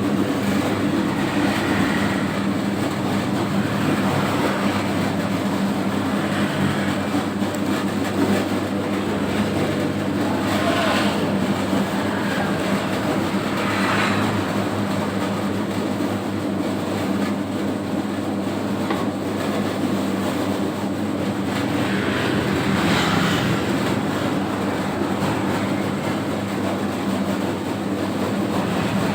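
Home-built 3 kg dough mixer running steadily: a constant motor and drive hum, with a few brief louder swishes or clatters as the dough is worked.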